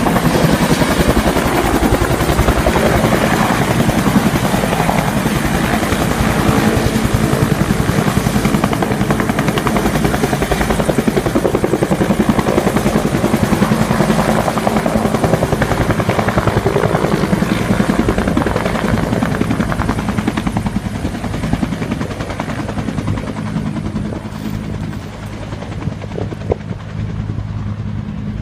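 Bell UH-1H Super Huey firefighting helicopter hovering low to dip its water bucket, its two-blade rotor beating steadily and loudly. The sound fades over the last several seconds as the helicopter moves away.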